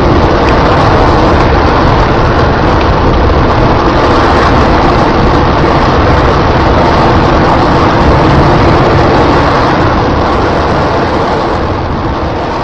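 Space Shuttle main engine firing on a static test stand: a loud, steady rocket noise that begins to fade over the last couple of seconds.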